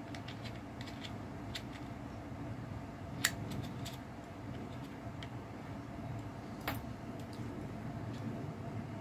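Scattered small clicks and light metallic taps from handling an Olympus OM-1 film camera while fitting its light-meter battery, with two sharper clicks about three and six and a half seconds in, over a steady low hum.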